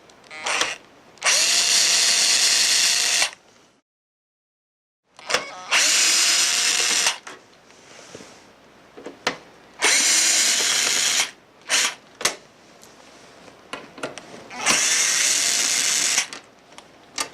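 Power drill/driver with a 1/8-inch hex bit backing out screws. The motor runs four times, about one and a half to two seconds each, spinning up at the start of each run, with short trigger blips in between.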